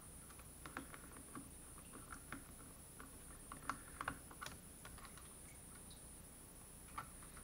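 Faint, irregular small clicks and ticks of a little screwdriver working tiny screws out of a laptop's hard-drive bay, metal tip clicking against the screw heads and case.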